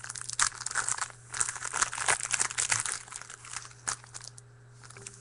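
Card pack wrapper crinkling and tearing as it is torn open by hand, a dense run of crackles for about three seconds, then a single sharp click and quieter handling.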